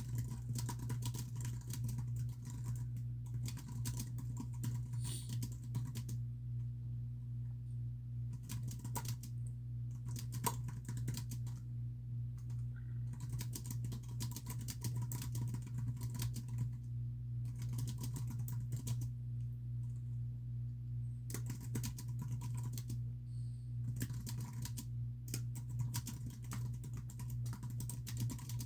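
Typing on a computer keyboard: runs of rapid keystrokes broken by short pauses, over a steady low hum.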